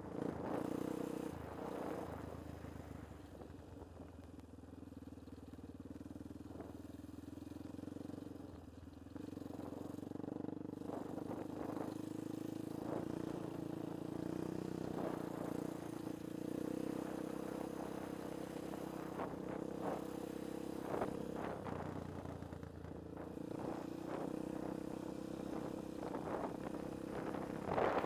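Yamaha Raptor 700 quad's single-cylinder engine running steadily while riding along a bumpy dirt track, with scattered knocks and clatter from the machine over the ruts. The engine eases off for a few seconds early on and comes back on about nine seconds in.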